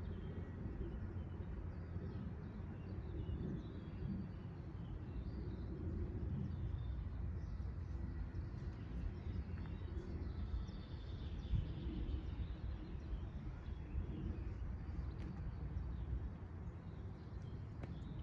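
Steady low rumbling background noise with small birds chirping now and then.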